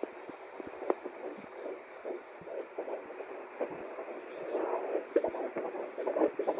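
Heartbeat sound: a run of short, unevenly spaced thumps mixed with rustling.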